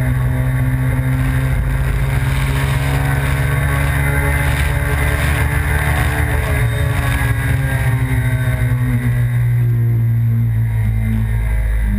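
2005 Suzuki SV1000S's 90-degree V-twin engine running under way at a steady, fairly even pitch, with wind and road noise rushing over the tank-mounted camera.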